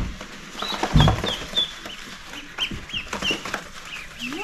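Young ducklings peeping: a busy run of short, high chirps that keeps going, with a dull thump about a second in.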